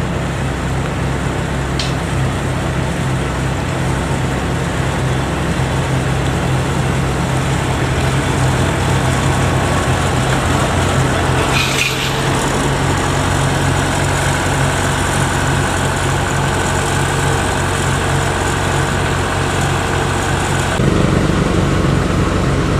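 Kubota DC93 combine harvester's diesel engine running steadily while the machine crawls on its tracks through mud. Its note shifts and grows a little louder about 21 seconds in.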